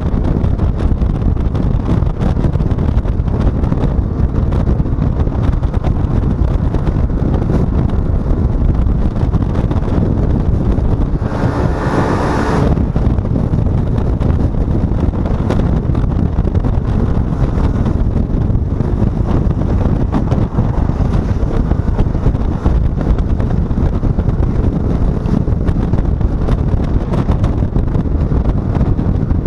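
Wind buffeting the microphone over the steady running of a Yamaha XMAX 125 scooter on the move, with a brief louder rush about twelve seconds in.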